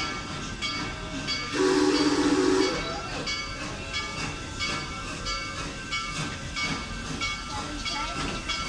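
Locomotive bell ringing steadily as the train enters the station, about two strokes a second. About a second and a half in comes one short blast of the locomotive whistle, a low chord over a hiss, the loudest sound here.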